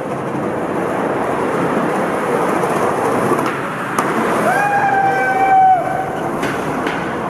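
Skateboard wheels rolling fast over rough street pavement: a loud, steady rumble. A few light clacks come a few seconds in, and about halfway through a steady held tone sounds for just over a second.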